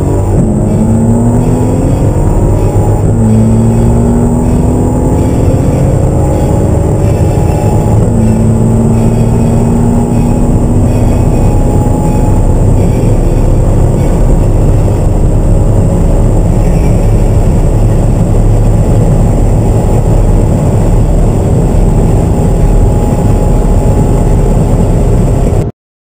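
Engines of a BMW M5 Competition (twin-turbo V8) and a Mercedes SL65 AMG (twin-turbo V12) accelerating hard at full throttle, mixed together. The engine note climbs in pitch through each gear and drops at the upshifts, three shifts in the first eight seconds, then long high-speed pulls; the sound cuts off just before the end.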